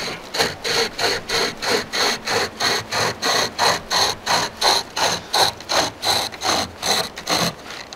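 Pocket survival chainsaw, a length of cutting chain pulled by cord handles, being drawn back and forth through a log. It makes an even rasp at about three strokes a second.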